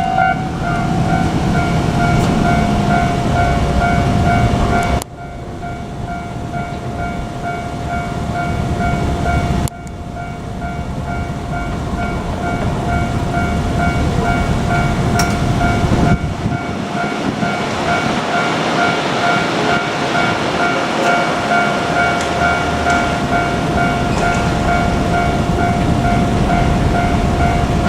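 Japanese level-crossing warning bell ringing in a steady repeating pulse, over the engine and wheel rumble of a JR Kyushu KiHa 47 diesel railcar set running through the crossing. The rumble swells and fades.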